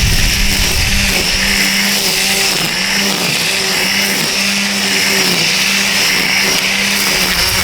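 DeWalt 20V Max brushless string trimmer running at a steady high speed, its whine dipping briefly in pitch several times as the spinning line bites into weeds. Choppier, rougher noise joins it near the start and near the end.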